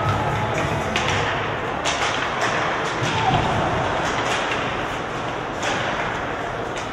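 Ice hockey play on a rink: a string of sharp knocks and thuds from sticks, puck and players striking the boards, over the steady hubbub of the arena.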